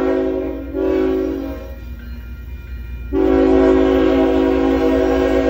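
Canadian National diesel locomotive's multi-chime air horn sounding for a road grade crossing: a long blast that breaks briefly about a second in and fades, then another long blast from about three seconds in, over a steady low rumble.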